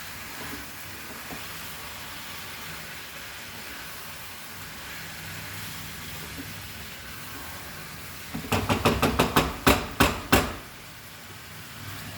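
Chicken sizzling in a pan as it is stirred, then, about two-thirds of the way in, a quick run of about eight sharp metal knocks of a spoon striking the pan.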